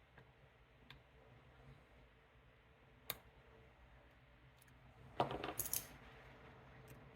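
Lock pick and tension tool working an Assa 700 pin-tumbler lock. There are a few faint metallic clicks, a sharp click about three seconds in, and a louder burst of rapid clicking and metal rattling a little after five seconds.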